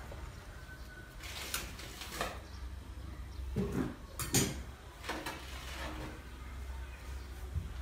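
Metal ladle clinking and scraping against the inside of a stainless steel soup pot as it is stirred: several short knocks, the loudest about four seconds in, over a steady low hum.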